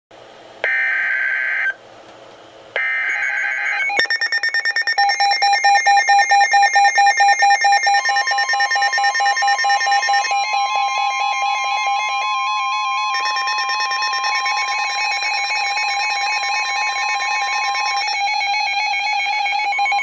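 Two short bursts of NOAA Weather Radio's warbling digital EAS header data, then from about four seconds in, Midland weather radios sound their alert alarm: fast pulsing electronic beeps with several tones at once, joined from about eight seconds in by the broadcast's steady warning tone, which stops near the end.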